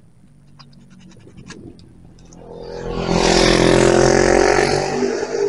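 A car drives past close by, its sound swelling about two and a half seconds in, loudest through the middle and dying away near the end. A few faint clicks come before it.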